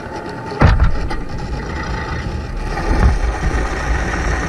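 Steady low rumble and water noise heard through a submerged camera, with one sharp knock about half a second in.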